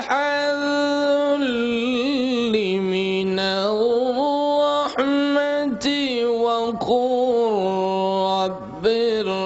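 A man chanting solo in long, drawn-out melodic phrases, holding notes and sliding between them with ornamented turns, with a short break near the end.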